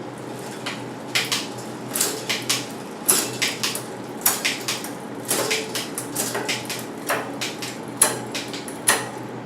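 Mountain bike chain and rear derailleur clicking and clattering on the cassette as the gears are shifted and the cranks turned by hand. The clicks come irregularly, several a second, with a few sharper clacks.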